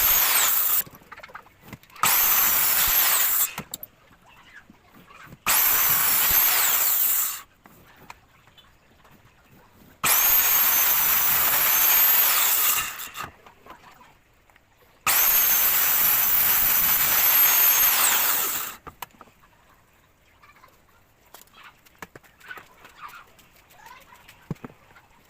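A high-speed woodworking power tool run in five bursts of about two to four seconds each, each with a high whine that drops away as the tool spins down. After the last burst only faint, scattered small sounds remain.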